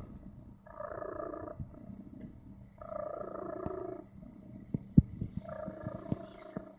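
Sleeping domestic cat snoring: three snoring breaths about two seconds apart, each lasting about a second. A sharp click about five seconds in.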